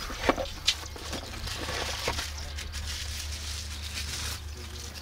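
Cardboard box and plastic packaging handled as a part is unpacked: a few sharp clicks and knocks in the first two seconds, then a steady plastic rustle that stops about four and a half seconds in, over a constant low hum.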